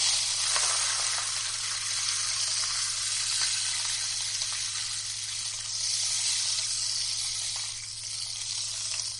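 Handmade hourglass-shaped rainstick tipped and left to pour: a continuous rain-like hiss of filling cascading through it, starting suddenly and running steadily, easing slightly near the end.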